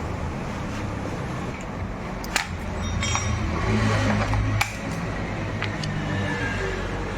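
A motor vehicle engine running with a low hum, swelling in level a few seconds in and dropping off suddenly, with a few sharp clicks.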